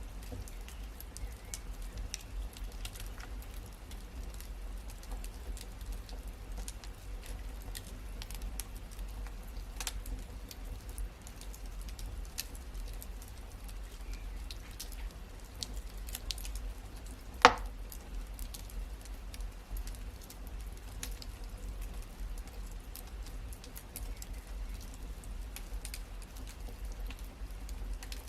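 Wood fire in a fireplace crackling: a steady scatter of small pops and snaps, with one much louder pop about two-thirds of the way through, over a low steady rumble.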